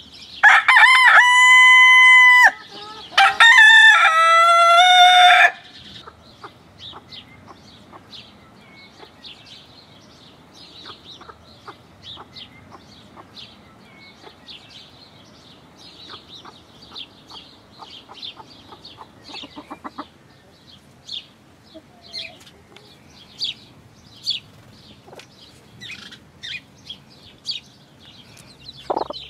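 A rooster crows loudly in two long stretches over the first five seconds, the second stretch falling in pitch. Then Appenzeller Spitzhauben hens keep up short, quieter clucks and peeps.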